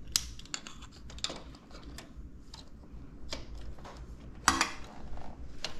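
Metal parts of a motorcycle rearset, the brake lever and its base plate, clicking and clinking against each other as they are fitted together by hand. The clicks are irregular and sharp, the loudest about four and a half seconds in.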